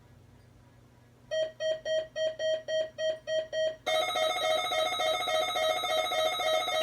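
Electronic alert tones: after a faint hiss, a run of about eight short beeps, roughly three a second, then from about four seconds in a steady, louder electronic tone made of several pitches at once.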